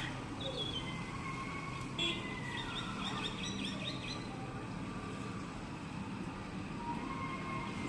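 Bird chirping: a short call about half a second in, then a quick run of chirps from about two to four seconds in, over a steady hum of distant traffic.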